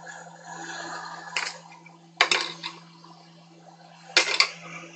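Hot air rushing from a BST-863 rework station's handpiece on maximum airflow, heating a surface-mount chip on a laptop circuit board to melt its solder, over a steady low hum. Sharp clicks come about a second and a half in, just after two seconds, and again after four seconds.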